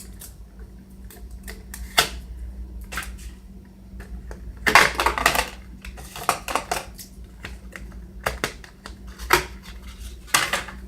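Packaging being handled and unwrapped: scattered sharp clicks and taps, with a louder rustling cluster a little under five seconds in.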